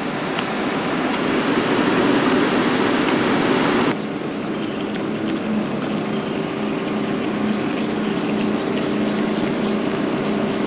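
Outdoor ambience over floodwater: a loud even rushing hiss for about four seconds that cuts off suddenly, then a steady low hum with scattered short, high chirps of insects.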